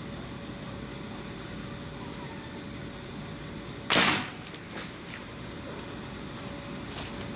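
A single loud shot from a Sam Yang 909S .45 calibre big-bore PCP air rifle firing a heavy 230-grain pellet at full power, about four seconds in, followed within a second by a few smaller sharp clicks.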